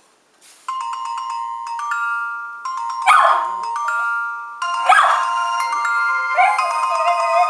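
A Palm Treo ringtone plays a melody of stepped electronic notes, starting about half a second in. A miniature schnauzer howls along to it, with short cries around three and five seconds in and a longer howl that bends up in pitch near the end.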